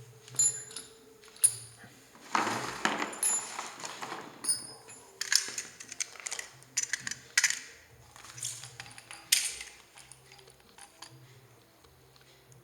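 Small hard items being handled: irregular clinks and clatters, some with a brief metallic ring, a few seconds apart and in quick clusters.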